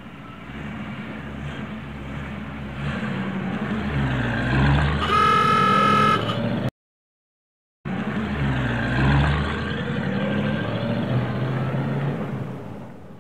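Old truck's engine running and growing louder, with a horn honking for about a second around five seconds in. The sound cuts out for about a second, then the engine runs again and fades near the end.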